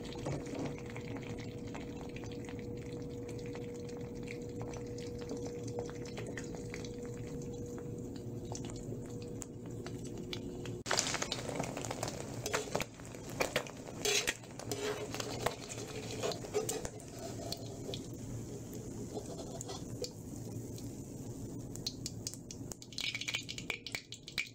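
An egg frying in oil in a metal wok: a faint steady hum at first, then from about eleven seconds in, irregular sizzling and spluttering with scrapes and taps of a utensil against the wok as the egg is broken up.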